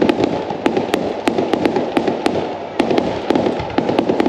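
Fireworks display: aerial shells bursting with a fast, irregular string of sharp crackling pops, several a second.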